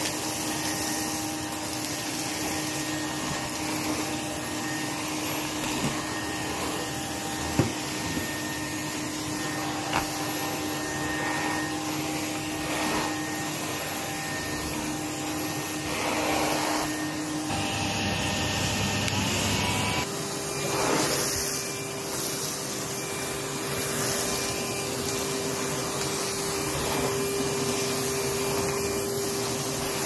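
Numatic Henry cylinder vacuum cleaner running steadily as its floor tool is pushed over carpet, sucking up sawdust. About two-thirds of the way through, the motor's hum steps up to a slightly higher pitch.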